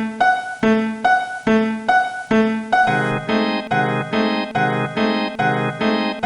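A synthesized bell-like tone struck over and over in an even beat, about two and a half strokes a second. About three seconds in it becomes a fuller, doubled beat with a lower layer added.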